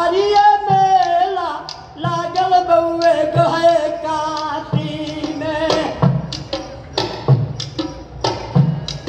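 Live folk singing by a man over a hand-drum beat. For the first six seconds or so he holds long notes with a wavering pitch. In the last few seconds the singing drops back and sharp drum strokes, about one or two a second, lead.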